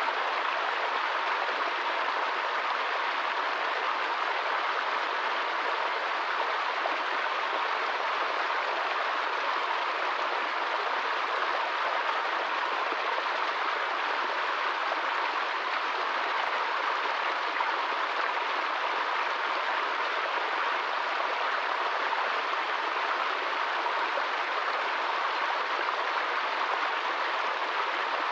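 Small stream cascading over rocks: a steady rush and splash of running water.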